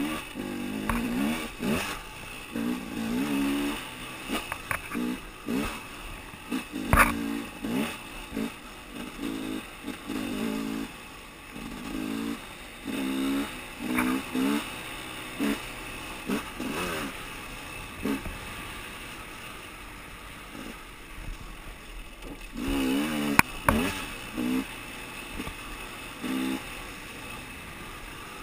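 Dirt bike engine revving up and down in short bursts of throttle, with clatter and knocks from the bike over rocks; a sharp knock comes about seven seconds in and another near 23 seconds.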